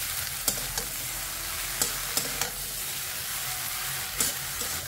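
Cut water lily stems frying in a kadhai on full flame with a steady sizzle, while a spatula stirs them, scraping and knocking against the pan every second or so.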